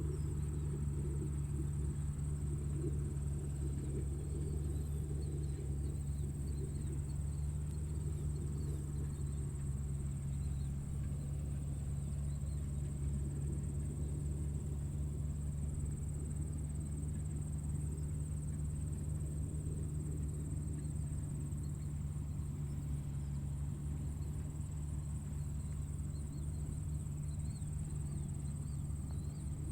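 Tractor engine running steadily, a low, even hum with no change in speed, with a constant high-pitched tone above it.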